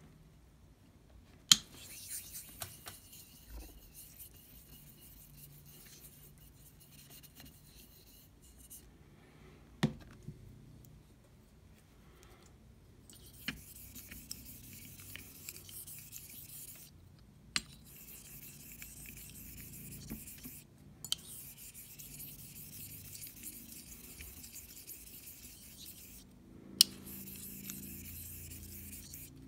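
Straight razor being honed on a wet Shinden Suita Japanese natural whetstone with slurry: the steel blade slides back and forth over the stone in runs of hissing strokes with short pauses between them. A few sharp clicks come in among the strokes, the loudest about a second and a half in and again near the end.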